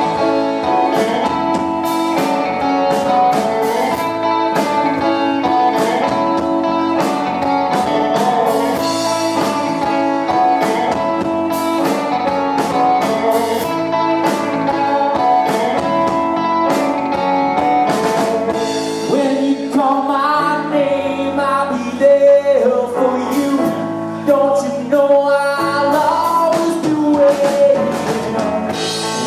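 Live rock band playing with electric guitar and drums. A male lead vocal stands out over the last third.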